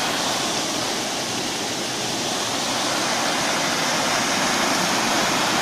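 River in high, fast flow rushing through white-water rapids: a steady, dense rush of water that grows slightly louder over the few seconds.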